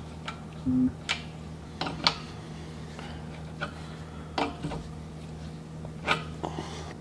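Light metallic clicks and taps, about six spread irregularly, as a brass fitting is threaded onto an air-line oiler and an open-end wrench is set on it, over a steady low hum.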